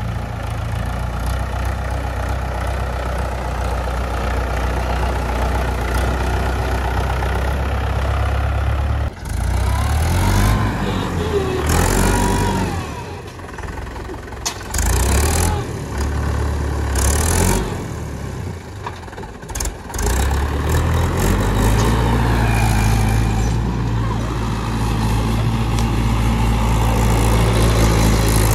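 Mahindra 415 DI tractor's diesel engine running under load as the tractor climbs over a dirt pile: steady at first, then uneven for a stretch in the middle with several loud bursts of noise, then steady again.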